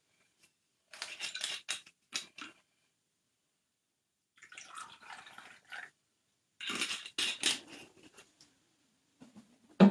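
Tableware clinking and clattering in short bursts as it is handled and set down, with a brief hazy rustle midway and one louder dull thump near the end.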